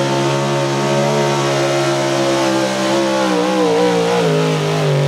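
Small-block V8 of a 4x4 pull truck running at full throttle under load as it drags the pulling sled. The engine pitch holds high and steady, then wavers up and down for about a second around three seconds in before steadying again.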